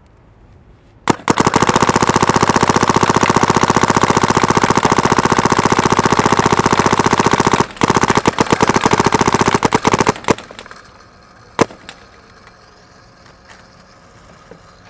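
SP Shocker XLS paintball marker firing paintballs in long rapid strings: one shot, a stream of shots lasting about six seconds, a short break, another stream of nearly three seconds, then a couple of single shots.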